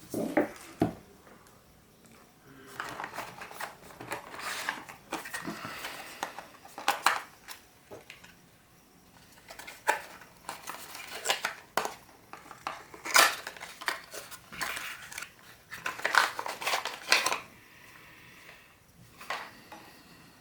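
Packaging being handled while a USB charger and its power cord are unpacked: irregular rustling and crinkling with sharp light clicks and knocks, dying down a couple of seconds before the end.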